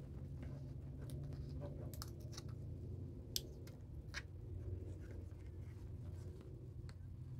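Small clicks and taps of hands handling tweezers and rhinestones on a craft table, scattered through the first half with one sharper click near the middle, over a steady low hum.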